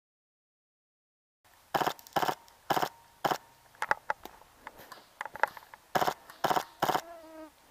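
Silent for about the first second and a half, then footsteps crunching through dry leaves and twigs at about two steps a second. A short pitched call comes near the end.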